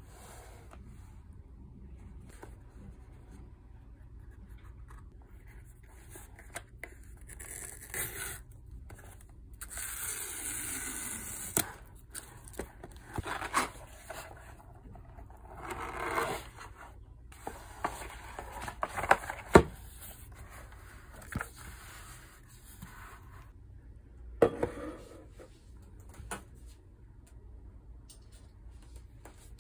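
A cardboard shipping box being unboxed. Its tear strip is pulled open in a long tearing rip about a third of the way in, followed by scrapes, rubs and taps as the cardboard and packaging are handled, including one sharp tap about two-thirds of the way through.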